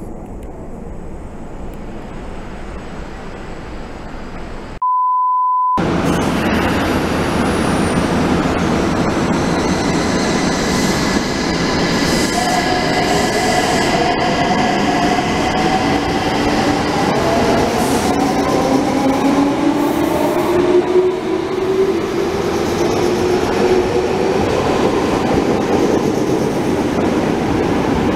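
Electric train running through an underground station: loud rumbling of wheels on rails, with the traction motors' whine climbing slowly in pitch as it picks up speed. Shortly before the train noise starts there is a single steady beep lasting about a second.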